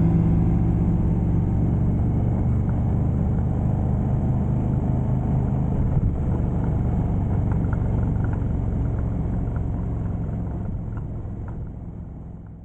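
Steady low vehicle rumble, like a bus running, with a few faint ticks, fading out near the end.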